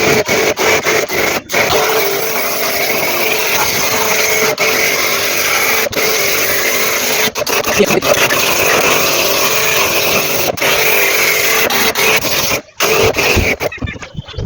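Electric jet pump (high-pressure washer) running steadily with its water spray, cleaning washing-machine parts. There is a short break near the end.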